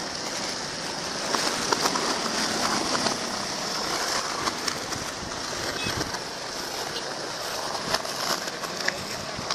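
Skateboard wheels rolling over stone paving slabs: a steady rough rolling noise with scattered sharp clicks and knocks, several close together about a second and a half in and again near the end.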